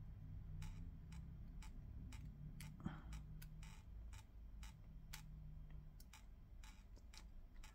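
Faint, even ticking of a clock, about two ticks a second, with a soft knock about three seconds in.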